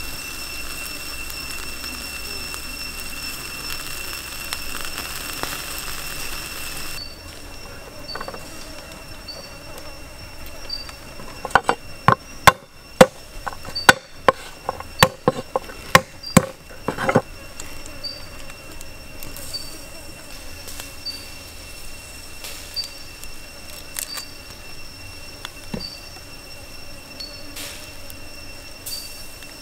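A cleaver chopping on a wooden board: a run of about a dozen sharp knocks over five seconds, around the middle. Under it, insects chirp steadily in a high, even pulse.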